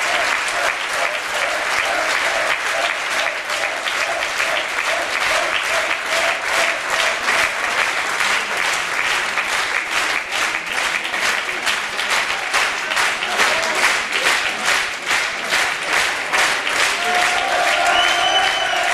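Concert audience applauding, with the clapping falling into a steady rhythm through the middle and voices shouting from the crowd near the end.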